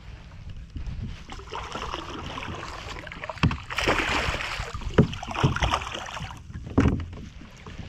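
Hooked bass splashing and thrashing at the surface right beside a kayak, with water sloshing and three sharp knocks spread through the middle and later part.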